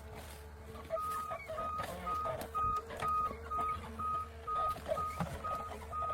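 A heavy machine's reversing alarm beeps steadily about twice a second, starting about a second in, over the low, steady running of a diesel engine.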